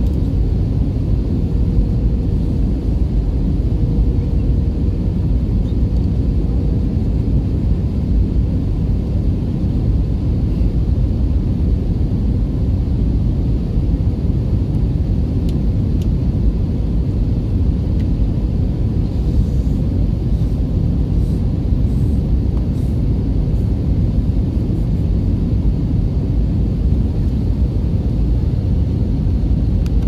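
Steady, low cabin rumble of a jet airliner on final approach with its flaps extended: engine and airflow noise heard from inside the cabin at a window seat.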